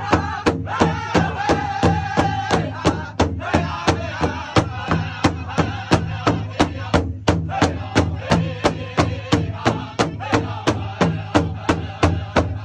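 Powwow drum group striking a large hide-covered drum in unison, a steady beat of about three strokes a second, with men singing together over it. The singing pauses briefly about halfway through while the drumbeat carries on.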